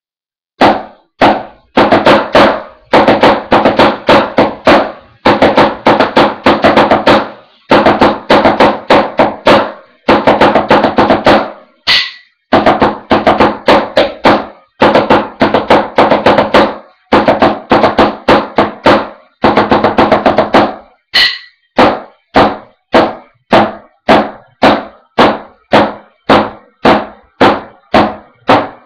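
Wooden drumsticks playing a drumline cadence on a practice pad: fast runs of strokes in phrases a few seconds long, broken by short gaps, then evenly spaced single strokes about two a second in the last third.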